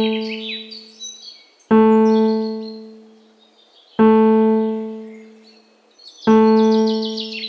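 A single soft electric-piano-like note struck about every two seconds, each ringing and slowly fading, three times over. Songbird trills, fast descending twitters, are heard at the start and again near the end.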